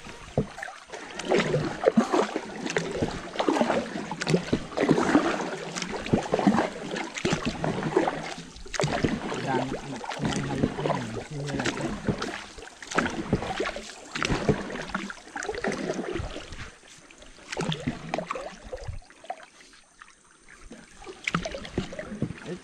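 Small boat being paddled on a river: paddles dipping and pulling, with water splashing and sloshing against the hull in irregular strokes about once a second, quieter near the end.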